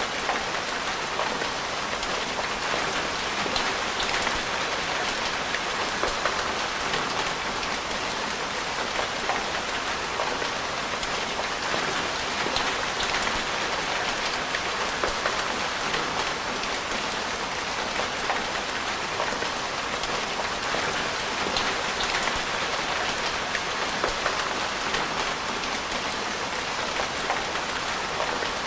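Steady rain falling, a dense even patter of drops with frequent sharp individual drop ticks.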